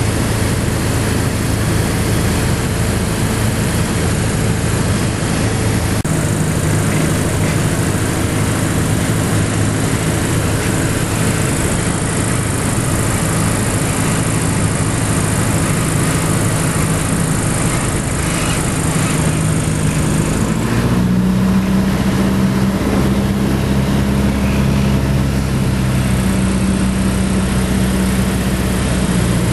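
Light aircraft's engine and propeller droning steadily in the cabin, with airflow hiss, on approach to the runway. About two-thirds of the way through, the engine note steps up slightly in pitch and gets a little louder.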